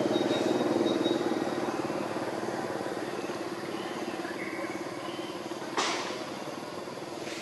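A motor vehicle's engine hum, loudest near the start and slowly fading. A single sharp click comes about six seconds in.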